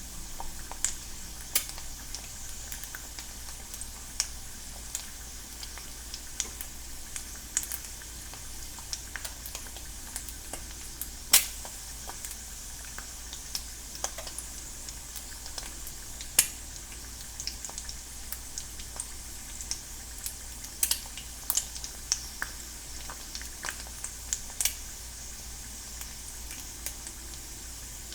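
An egg frying in a non-stick pan: a steady sizzling hiss with irregular sharp crackles and pops, the loudest about eleven and sixteen seconds in.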